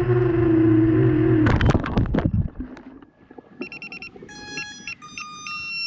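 A drone's electric motors and propellers running steadily, then a rapid clatter about a second and a half in as it crashes into tree branches. After a short lull comes a run of high electronic beeps at changing pitches.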